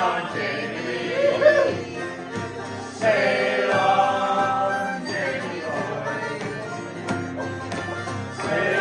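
Group sing-along of a folk song's chorus, many voices singing together over a strummed acoustic guitar and banjo.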